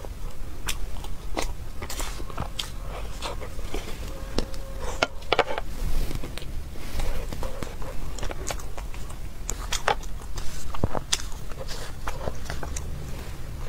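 Close-miked mouth sounds of a person chewing a soft pastry: a run of wet clicks and smacks.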